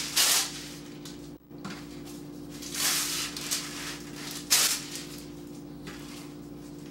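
Wax paper being pulled from its box and torn off against the box's cutting edge: crinkling paper rustles, with a sharper tear about four and a half seconds in.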